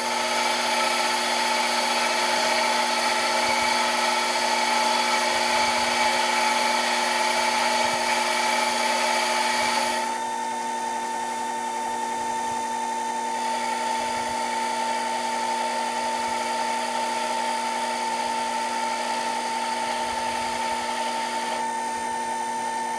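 Sherline mini lathe running with a steady motor whine while the tool takes a very light turning cut on a lubricated aluminium bar, with a hiss over the whine. The hiss drops about ten seconds in while the whine carries on.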